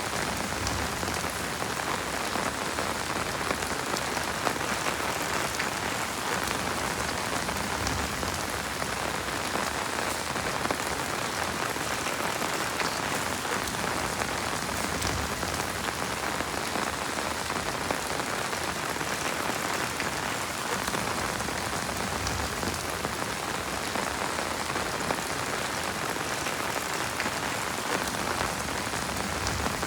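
Heavy rain falling steadily, a dense, even patter of many drops.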